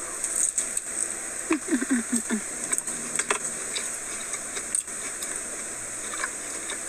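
Eating sounds: a person chewing, with small mouth clicks over a steady hiss, and a short hummed 'mm-mm' about a second and a half in.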